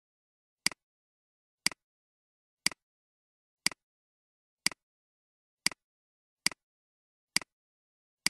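Computer mouse button clicked about once a second, about eight times. Each click is a sharp press followed at once by a softer release.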